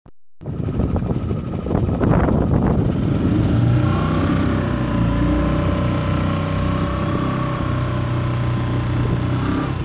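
Motor engine running at a steady speed. The first seconds are rough and noisy, then a steady even hum settles in.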